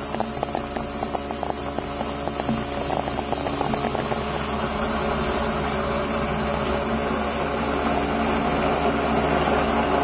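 Four-flute solid end mills slotting 1.2379 (D2) tool steel on a CNC milling machine: a steady, pitched cutting whine over machine noise, with rapid crackling of chips and tool entry during the first few seconds.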